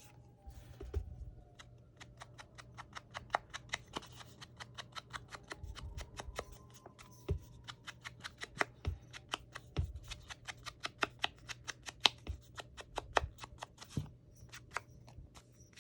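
Edges of paper craft tags being distressed by hand: a steady run of short, crisp scraping strokes, about three a second.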